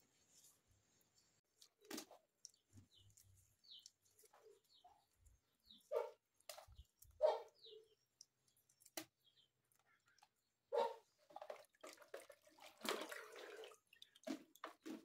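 Wet feathers being plucked by hand from a scalded chicken sitting in a plastic basin of water: scattered soft rips, splashes and knocks against the basin, the longest stretch of handling near the end. A few faint, short high chirps sound in the first half.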